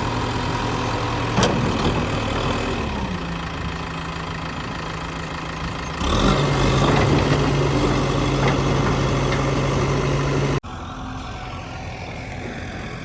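Heavy diesel engine running, with a sharp knock about a second and a half in. Its note drops a little about three seconds in, then grows louder and steadier from about six seconds. The sound cuts abruptly to a quieter engine about ten and a half seconds in.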